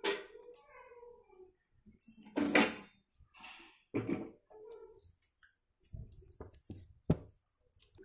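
Glass pot lid clinking and knocking against the rim of a steel cooking pot several times as it is handled on the pot, the loudest knock about two and a half seconds in.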